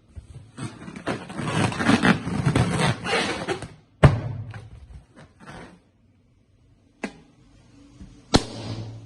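Latex balloons popped with a pin: three sharp pops, about four, seven and eight seconds in, the one at seven weaker. Before them comes a few seconds of dense rubbing and rustling noise.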